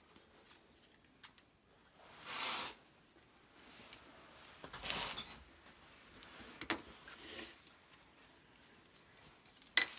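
Handling noise: three short rustles, each about half a second long, and a few sharp light clicks scattered between them.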